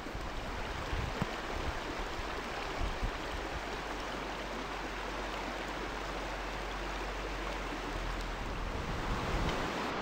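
Steady rush of a fast river running over rocks and shallow rapids.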